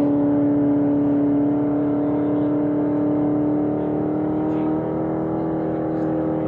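Supercharged gasoline engine of a land-speed roadster running hard at high revs, heard as one steady engine note that climbs slowly in pitch while growing slightly fainter.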